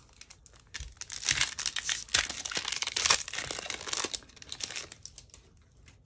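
Foil wrapper of a Topps Chrome trading-card pack being torn open and crinkled by hand: a dense crackling that starts about a second in and dies away about five seconds in.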